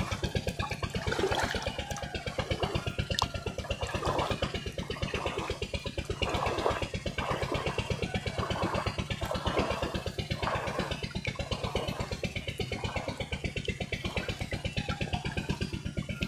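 A small engine running steadily at low revs, with a fast, even putter that stays unchanged throughout.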